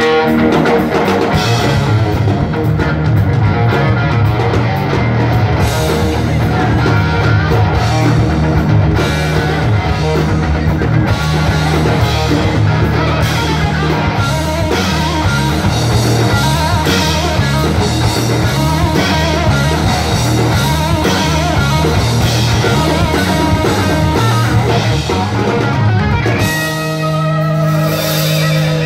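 Live rock band playing an instrumental section: electric guitar lead over bass guitar and a drum kit. About two seconds before the end the drums drop away and held guitar notes ring on, one bending in pitch.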